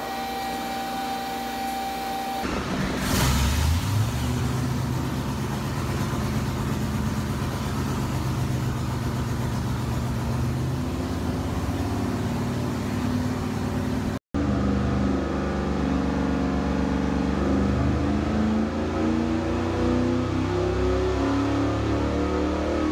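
Junkyard 4.8L LS (LR4) V8 on an engine dyno, fitted with a Brian Tooley Racing Truck Norris NSR cam on its old stock low-lift valve springs. It catches about two and a half seconds in and runs steadily at idle. After a brief cut a little past the middle it is heard running again with a choppier note.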